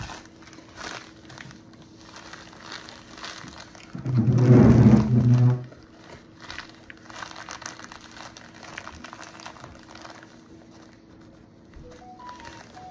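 Padded flat rate mailing envelope being crinkled and torn open by hand: a stream of small crackles and rustles, with one louder, pitched stretch lasting about a second and a half around the middle.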